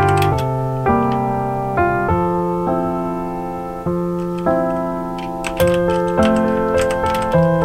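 Piano background music, single notes and chords struck every half second to a second. Computer keyboard typing clicks in over it near the start and again from about five and a half seconds in.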